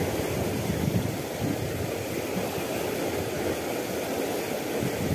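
Steady rushing noise of fast, turbulent water in a concrete channel, mixed with uneven low rumbling from wind buffeting the microphone.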